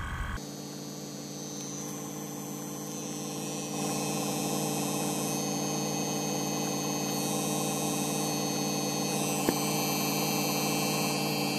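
Steady mechanical hum from a running 2003 GMC Yukon Denali while its rear air suspension fills with air and the body lifts a little. The hum gets louder about four seconds in, and there is one sharp click near the end.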